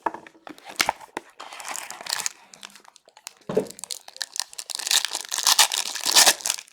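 A trading-card pack wrapper being torn open and crinkled by hand: irregular crackling and tearing, heaviest in the second half.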